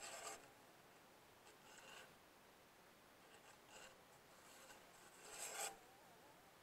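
Near silence, broken by four faint, brief rasping scrapes: the strongest at the start and about five and a half seconds in, weaker ones around two and four seconds.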